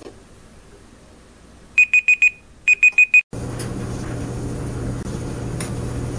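Countdown timer alarm on an Android device going off: two quick bursts of about five short, high beeps each, signalling that the laundry time is up. It stops abruptly and is followed by a steady low hum.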